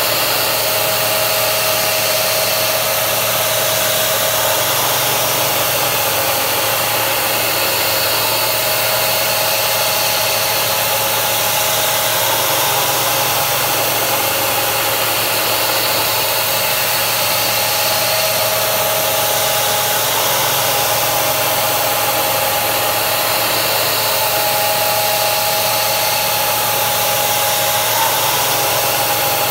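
Steady loud hiss of a mist coolant sprayer while a CNC machine cuts with a carbide end mill. Thin whining tones come and go and step up and down in pitch as the cut goes on.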